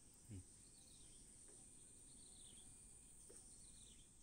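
Near silence: faint outdoor ambience with a steady high hiss and short falling chirps repeating about once a second, plus one brief low sound about a third of a second in.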